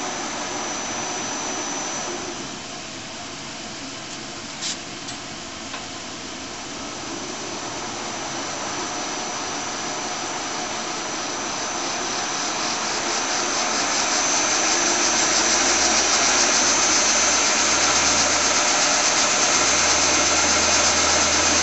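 Monarch 10EE lathe spindle running in reverse on its AC vector drive, its high whine and gear noise growing steadily louder as the spindle is brought up toward 2200 rpm, then holding. A short click about five seconds in.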